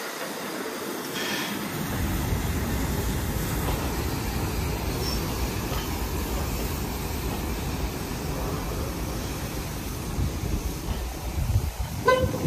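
Caledonian Railway 828, an 0-6-0 steam locomotive, and its wagons rolling slowly along the track, a steady rumble of wheels on rail, with a brief high wheel squeal near the end.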